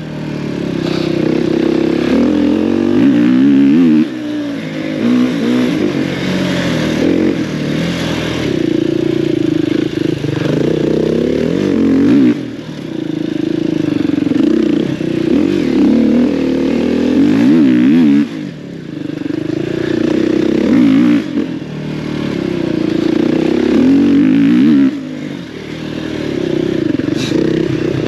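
Enduro dirt bike engine revving up and easing off over and over as the bike is ridden around a tight practice track, with short throttle-offs about twelve, eighteen and twenty-five seconds in.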